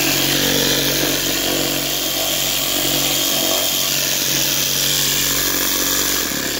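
Cordless reciprocating saw running steadily, its blade cutting through a wooden board.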